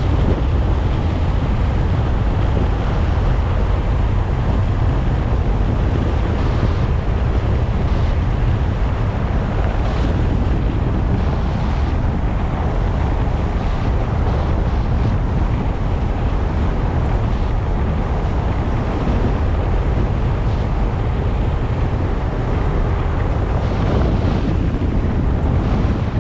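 Steady wind rushing over the microphone, with a low road rumble from a moving car.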